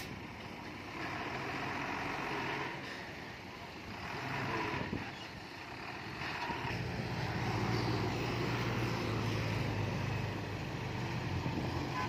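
Diesel engine of heavy earthmoving machinery running, with rough mechanical noise over it; the engine grows louder and steadier about halfway through.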